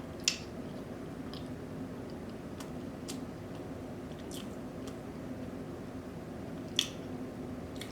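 Close-up eating sounds: chewing with a few short, wet mouth smacks and squishes, the sharpest about seven seconds in, over a steady low hum.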